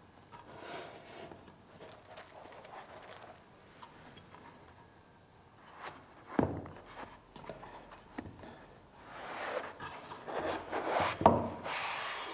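Foam packaging trays scraping and rubbing against the sides of a wooden box as they are handled and lifted out. There are two sharp knocks, one about halfway through and a louder one near the end, and the scraping gets louder over the last few seconds.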